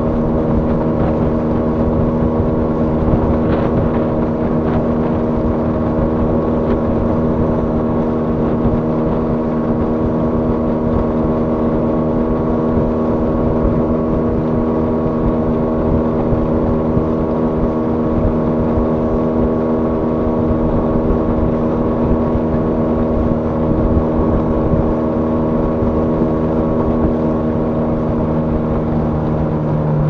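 A small boat's outboard motor running at a steady cruising speed, with the rush of the hull through the water.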